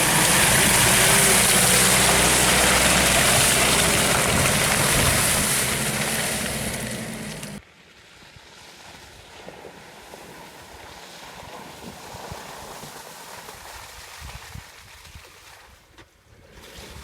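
An off-road SUV's engine runs under a loud rushing noise. About seven and a half seconds in, it cuts off suddenly to a much quieter, uneven vehicle sound.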